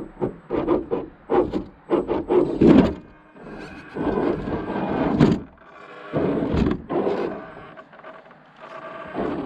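Axial SCX10 II 1/10-scale RC crawler working over rough forest ground: a quick run of irregular knocks and scrapes in the first three seconds, then longer stretches where the electric motor and drivetrain whine steadily under load, broken by more knocks and rubbing.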